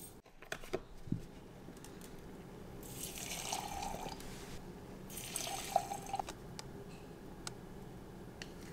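A metal spoon clinks a few times against a glass jar, then oat milk is poured from a carton into glass jars in two pours of about a second and a half each.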